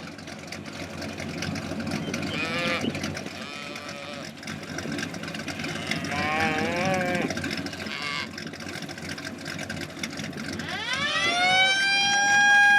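Cattle mooing over the steady low rumble of a running truck engine. Near the end a strong high whine rises, holds for about two seconds, then falls away.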